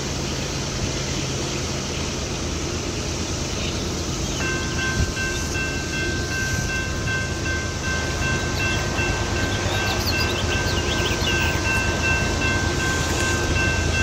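A railroad crossing warning bell starts ringing about four seconds in and keeps up a steady, high ringing as the crossing gates come down. Under it runs the low hum of an approaching freight train's diesel locomotives, with the constant drone of a 17-year periodical cicada chorus.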